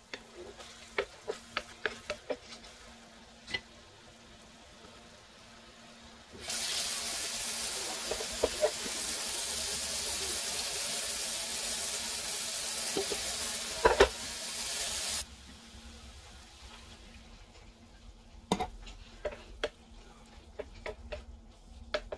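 Wooden spoon stirring and scraping ground beef in a frying pan, with scattered light clicks. About six seconds in, a loud steady hiss starts abruptly, runs for roughly nine seconds with a couple of knocks in it, and cuts off suddenly.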